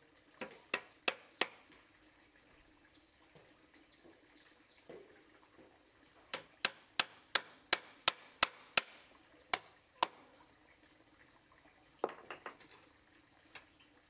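Series of sharp strikes of a tool on wood: four quick ones about half a second in, a run of about ten at roughly three a second a few seconds later, then a short cluster near the end.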